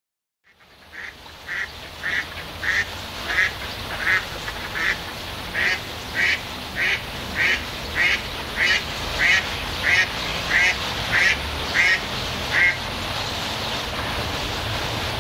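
A duck quacking over and over, about one quack every two-thirds of a second, over a steady pond background hiss. The quacks stop a couple of seconds before the end, and the background carries on.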